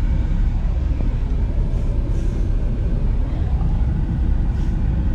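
Steady low rumble of a vehicle heard from inside its cabin.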